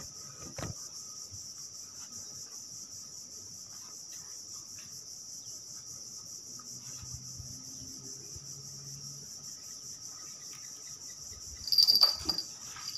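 Insects chirring in a steady, high-pitched chorus, with a short loud burst of noise near the end.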